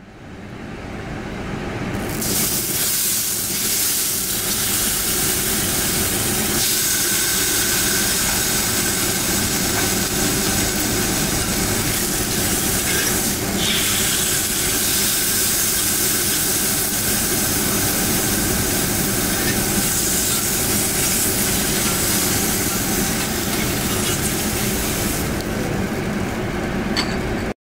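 A thin slice of A5 wagyu sirloin sizzling on a hot yakiniku grill grate: a steady, dense hiss that swells in over the first two seconds as the meat goes down. Its bright top end falls away a couple of seconds before the end.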